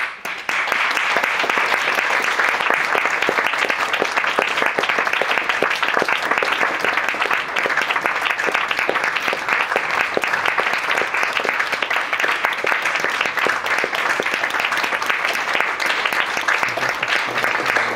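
Audience applauding in a hall: steady, dense clapping that sets in suddenly within the first second and keeps up without a break.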